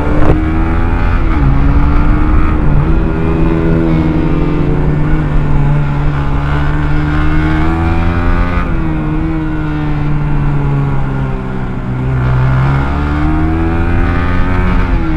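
Onboard sound of a Honda CBR sport bike's engine running at moderate revs on a tyre warm-up lap, its pitch rising and falling several times, over a steady rush of wind.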